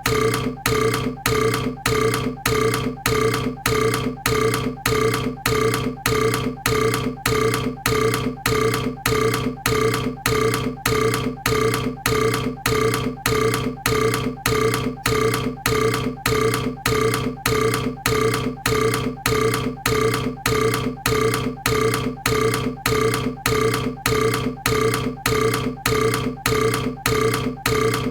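A burp repeated over and over in a tight, even loop, about two burps a second, each one the same.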